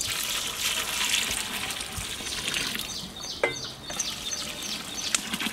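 Water poured in a steady stream into a large pot of hot mutton curry, splashing into the gravy. The splashing grows a little lighter about three seconds in.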